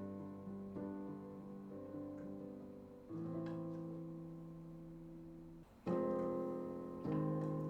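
Piano playing slow held chords, a new chord struck every second or so. After a brief drop about halfway through, the chords come in louder.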